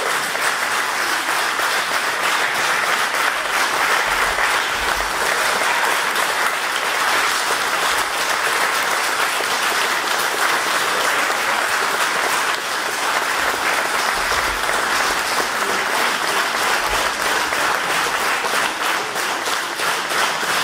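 Audience applauding steadily in a hall; over the last couple of seconds the clapping starts falling into an even rhythm.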